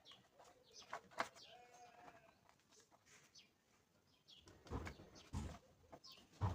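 Faint bird calls, short chirps in the background, with a few soft knocks about two-thirds of the way in.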